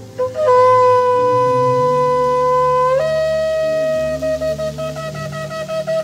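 A long spiral-horn shofar being blown. It sounds one long steady blast that jumps up to a higher note about three seconds in, then breaks into a rapid run of short pulsed blasts.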